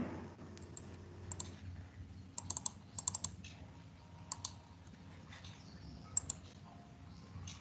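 Computer keyboard keys and clicks being tapped in short groups of a few strokes, the busiest run about two and a half to three and a half seconds in, over a faint steady background.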